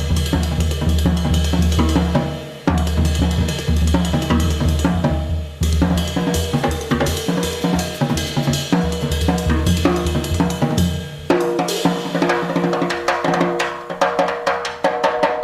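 Live jazz piano trio with the drum kit to the fore: busy snare, cymbal, hi-hat and bass drum playing over pitched bass and piano notes, heard from an FM broadcast recorded on cassette tape.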